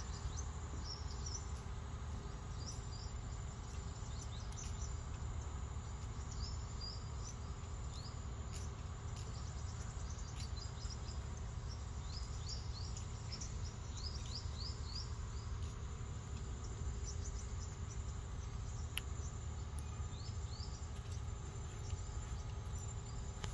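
Outdoor ambience: many short, quick rising chirps of small birds, scattered irregularly over a steady low rumble, with a few faint clicks.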